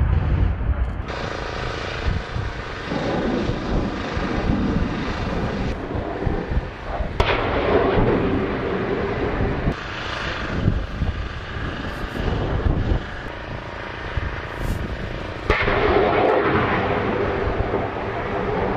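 Military engine and firing noise from a run of short clips: aircraft and vehicle engines, with artillery fire. The sound changes abruptly several times.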